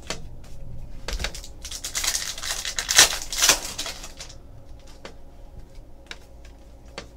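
A 2015-16 Donruss basketball pack wrapper crinkling and tearing open for about two and a half seconds, starting about a second and a half in. Light clicks and taps of trading cards being handled and flipped through run before and after it.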